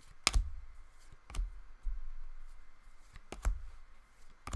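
Hockey trading cards being flipped through by hand, a sharp snap each time a card is slid off the stack, about five times at uneven intervals, some with a dull low thump as the hands knock the stack.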